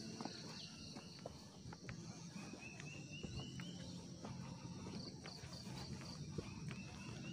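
Faint insect chorus with a steady high drone, and a short run of repeated high chirps that comes twice, about two and a half seconds in and again near the end. Soft clicks of footsteps on the stone steps.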